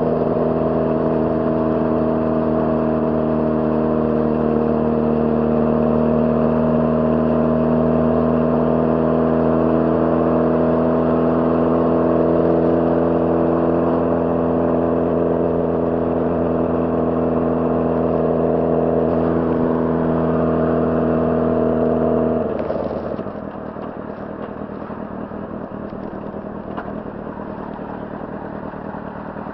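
Honda CBR600RR inline-four engine running steadily at a constant speed, its note unchanging. About 22 seconds in the engine note cuts away, leaving a quieter, noisy clatter with scattered ticks.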